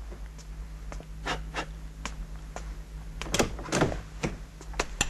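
Footsteps and a door being handled indoors: a string of short, irregular knocks and clicks, the loudest two about three and a half seconds in, over a faint steady hum.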